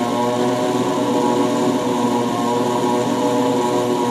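Small rotary engine on a laboratory test stand running steadily at a constant speed, with an even, buzzing engine tone.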